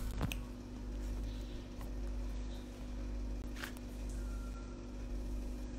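Room tone: a steady low hum with a faint steady tone in it, broken by a few faint clicks.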